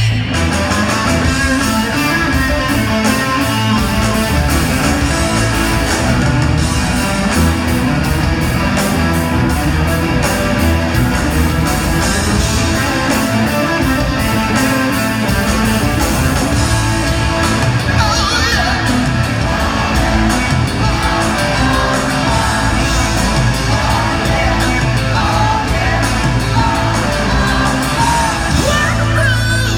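Loud rock music with a steady beat and singing, the vocals at times yelled.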